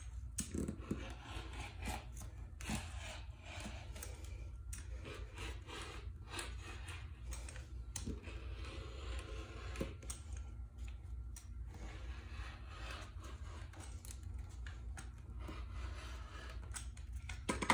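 A rotary cutter rolling and scraping through fabric and paper pattern pieces on a cutting mat, with paper rustling as a hand smooths the pattern. A low steady hum runs underneath.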